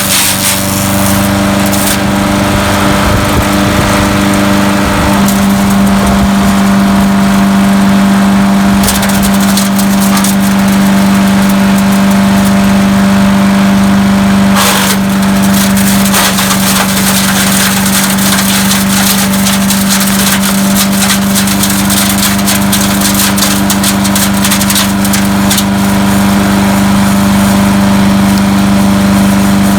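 Landworks 7 HP four-stroke gas wood chipper/shredder running steadily at full speed, with irregular crackling and snapping of branches being chipped.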